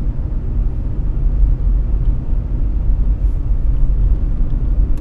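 Steady low rumble of a car driving, road and engine noise as heard from inside the cabin.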